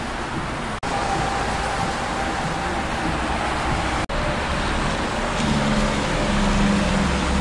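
Highway traffic passing on a wet road: a steady hiss of tyres and engines. Briefly cut out twice, and a heavy truck's low engine note comes up in the last couple of seconds.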